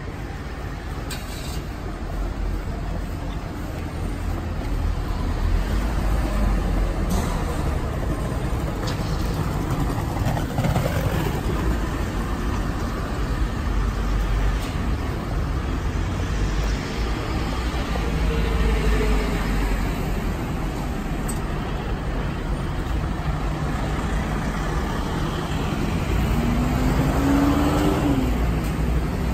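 City road traffic: cars, buses and trucks passing in a steady rumble of engines and tyres, with one engine note rising and then falling near the end.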